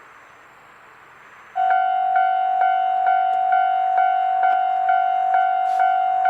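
Railway level crossing warning bell starting suddenly about one and a half seconds in, then clanging steadily at a little over two strikes a second over a held ringing tone: the crossing alarm for an approaching train.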